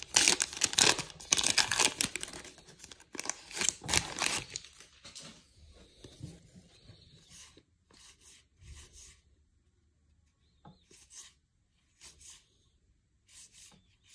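A baseball-card pack wrapper being torn open and crinkled for about four seconds, then quieter, brief swishes of cards sliding against one another as they are flipped through one by one.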